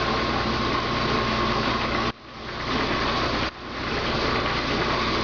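Belt-driven machine-shop shafting and a leather-belt cone-pulley drive running: a steady mechanical whir and hum with a thin steady high tone. The sound cuts out abruptly twice, about two and three and a half seconds in, and swells back over about a second each time.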